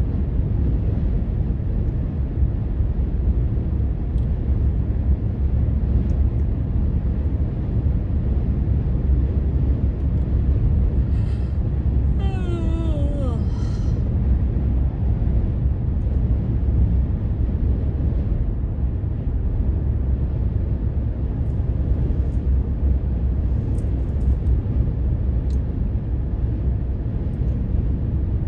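Steady low rumble of a car's tyres and engine on wet pavement, heard from inside the cabin while driving at highway speed. About twelve seconds in, a brief pitched sound glides downward.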